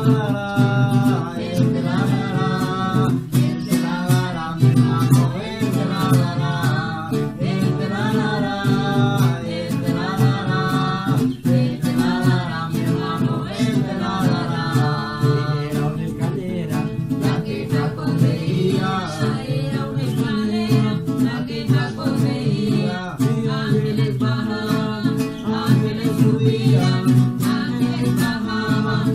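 Christian worship song: an acoustic guitar strums chords under a singing voice, which holds and bends its notes over the steady strumming.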